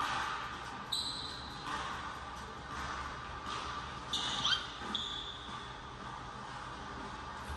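Basketball being dribbled on a hardwood gym floor, with a few short high sneaker squeaks, the loudest about a second in and around four to five seconds in. All of it echoes in the large hall.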